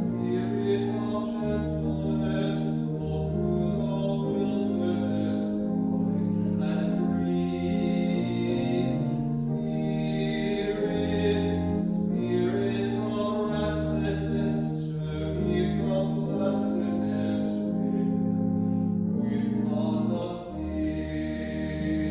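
A hymn sung with keyboard accompaniment: a voice carrying the melody over held chords.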